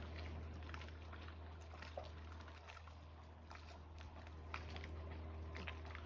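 Water lapping gently against a floating wooden dock, with small irregular splashes and drips from gulls dabbling on the surface, over a low steady hum.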